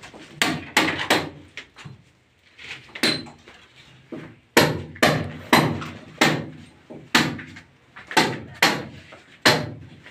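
Hammer blows striking in a steady run, about two a second, with a lull from about two to four seconds in: cutting channels into a brick wall for wiring and plumbing.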